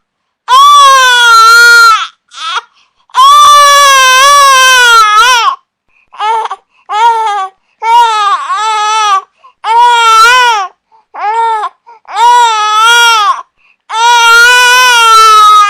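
An infant crying hard in a series of loud wails, some long and drawn out, others short, with brief pauses for breath between them.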